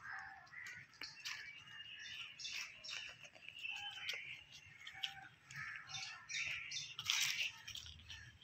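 Small birds chirping and calling, many short calls overlapping, with a louder stretch of calling about seven seconds in.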